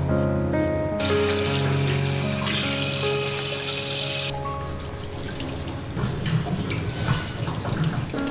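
Handheld shower head spraying water onto a cat's wet fur, a steady hiss that starts about a second in and stops about three seconds later. After it, softer splashing and dripping as the fur is rinsed by hand.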